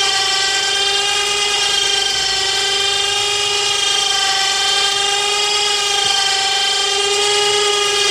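12-volt electric winch on a pickup-truck crane running with a steady, high whine as it pays out cable, lowering a heavy stone.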